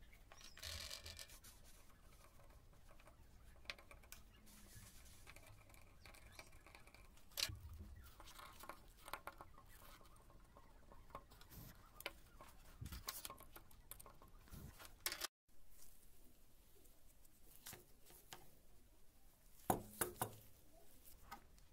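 Faint handling noises: scattered small clicks and taps of plastic parts and tools being handled on a wooden tabletop, with a brief hiss near the start and a couple of sharper knocks, about seven seconds in and near the end.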